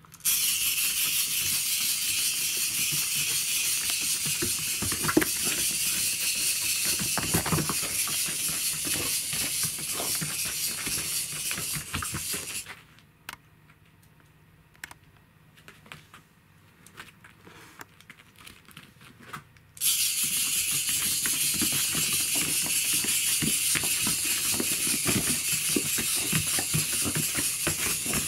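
Clockwork wind-up toy stag beetle running, its spring motor giving a loud, steady high whirr as the legs, horns and wings work. It runs down and stops after about twelve seconds, a short run time. A quiet stretch of scattered light clicks follows, then the whirr starts again about twenty seconds in.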